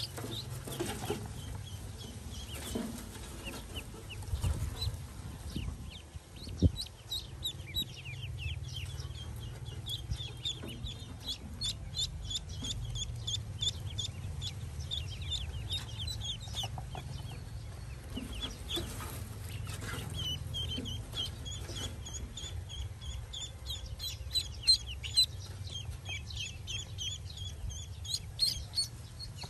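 A brood of Pekin ducklings peeping: many short, high, falling cheeps overlapping without a break, over a low rumble. One sharp knock about seven seconds in.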